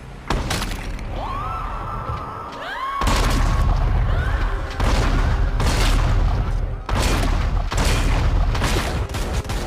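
Film gunfight: a series of heavy pistol and shotgun shots, about one to two seconds apart, each with a deep boom. A rising, held tone sounds in the first few seconds before the shooting thickens.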